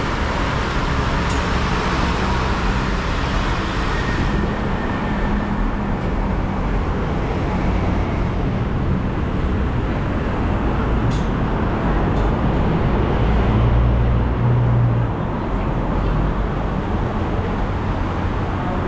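Steady road traffic from cars and buses, with a low engine hum underneath; one engine hums louder for a second or so about fourteen seconds in.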